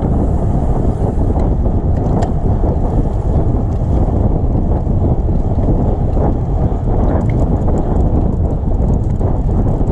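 Wind buffeting the microphone, a loud, steady low rumble with a few faint clicks above it.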